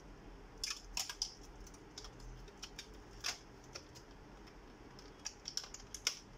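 Irregular light clicks and taps of hands working on the open metal chassis of an all-in-one computer, in small bunches about a second in and again near the end.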